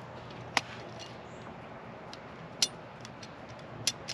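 Handling of a plastic window deflector and a small cutter: three or four short sharp clicks spread across the few seconds, over a faint steady hum.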